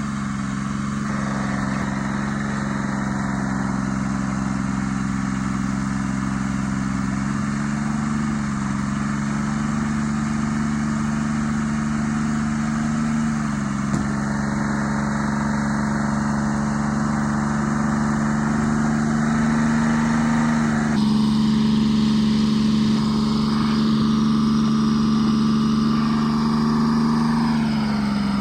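Tree Farmer forwarder's diesel engine running steadily, its pitch dipping slightly a few times as it takes on load.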